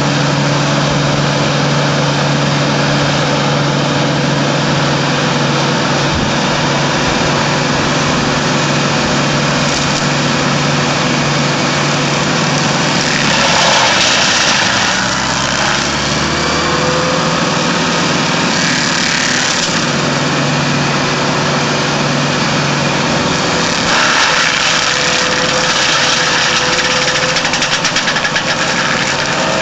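Tractor-mounted TFVJ INDO forestry mulcher at work: the tractor engine runs steadily under load while the free-swinging hammer rotor spins and shreds trees and brush. About halfway through and again near the end the shredding gets louder, and the steady engine note drops away for a few seconds around the middle.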